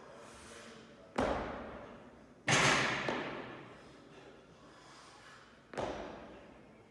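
Three heavy thuds with long echoing tails, the second about a second after the first and the loudest, the third a few seconds later: weights dropped onto a gym floor.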